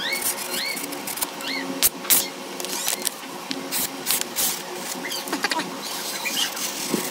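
Kitchen knife blade slicing through a hand-held sheet of paper, with paper rustling and crinkling and sharp crackles as the edge cuts: a paper-slicing test of the edge's sharpness after stropping on leather.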